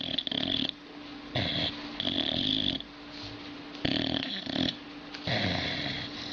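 Dog snoring in its sleep: about four snore breaths, each with a high hissing edge, coming every second or two.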